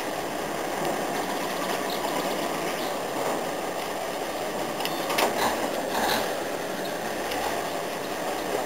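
Old crawler crane's engine and winch running steadily as it hoists a narrowboat, with two brief louder noises about five and six seconds in.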